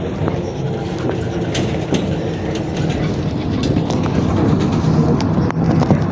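Interior noise of a MAZ 103 city bus under way: the engine runs with a steady low drone while the body and fittings rattle and click, the drone growing a little louder about four seconds in.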